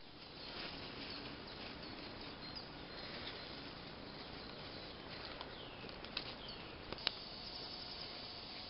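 Spring forest ambience: birds calling with short downward-sliding notes over a steady hiss, with a couple of sharp clicks about six and seven seconds in.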